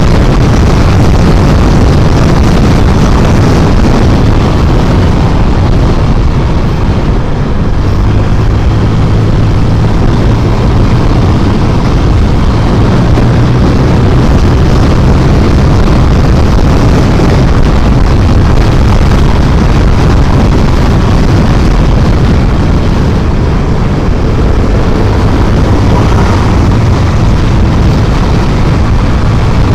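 A Honda scooter's engine running steadily at about 80 to 90 km/h, largely covered by loud, steady wind noise on the microphone.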